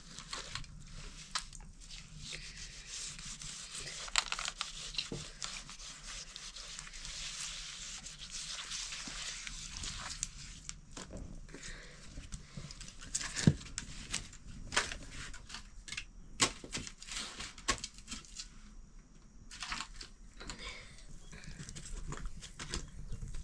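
Rustling and tearing with scattered sharp clicks and knocks, typical of hands working over food, such as pulling apart and cleaning wild mushrooms.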